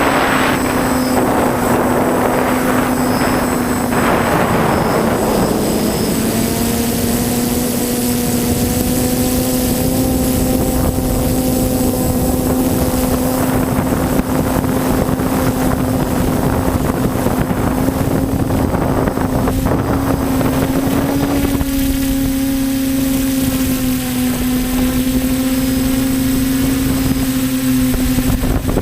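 TBS Discovery quadcopter's electric motors and propellers buzzing in flight, a steady drone that rises a little in pitch about two-thirds of the way through and then settles. Wind rushes over the microphone in gusts during the first few seconds.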